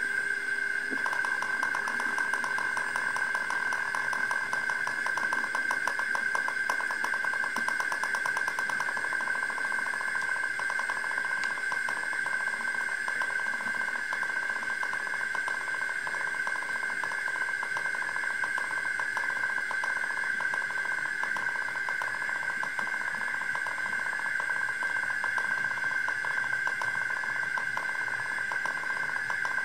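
H0-scale model steam locomotive running on the layout: a steady high whine with a fast, even ticking rhythm that starts about a second in.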